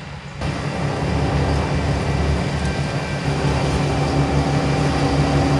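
Self-propelled pea viner running at work: a steady engine note with the machine's mechanical hum, jumping up in level about half a second in.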